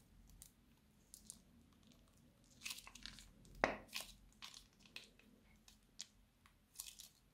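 Slime squeezed out of a plastic piping bag: a run of small crackles and pops, thickest and loudest a little past halfway through, with the bag crinkling.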